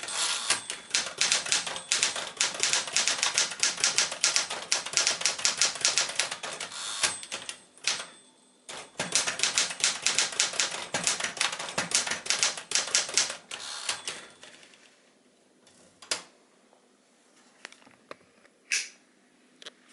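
JCPenney Caravelle 12, a rebadged Smith-Corona Galaxie manual portable typewriter, being typed on in quick runs of sharp keystroke clacks. There is a short break about eight seconds in. The typing stops about two-thirds of the way through, leaving a few single clicks and knocks.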